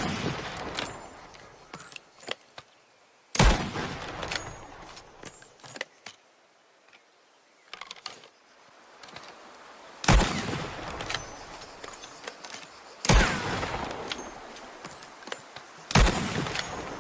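Trapdoor Springfield carbine fired four times at uneven intervals, each shot a sharp crack with a long echoing tail. Faint clicks come in the gaps between shots.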